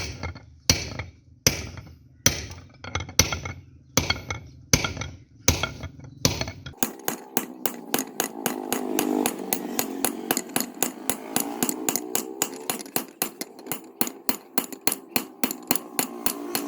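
Hammer blows on metal at a blacksmith's anvil, forging a gardening trowel: evenly spaced ringing strikes a little under a second apart. About seven seconds in they give way to a quicker run of lighter strikes, about four a second, over a steady machine hum.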